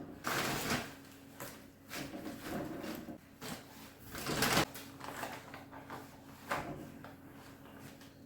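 Household handling noises: a few short scrapes and rustles, the loudest about a quarter second in and again at about four and a half seconds, over a faint steady hum.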